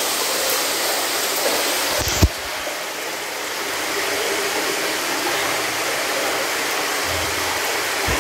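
Hot water running steadily from a hose into a shallow pool, a continuous rushing hiss, with a single short thump about two seconds in.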